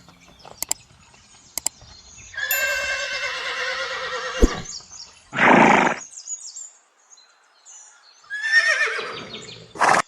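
A horse neighing: one long, wavering whinny a few seconds in, a short breathy burst about a second later, and a second whinny falling in pitch near the end. A few sharp clicks come before the first whinny.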